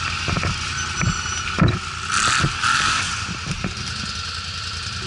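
An ATV engine running steadily, with scattered knocks and rattles and a louder hissing rush a couple of seconds in.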